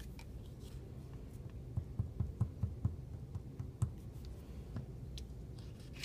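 A quick run of about eight light taps over two seconds as a plastic school-glue bottle dabs dots of glue onto the back of a paper cut-out on a wooden table, over a low steady hum.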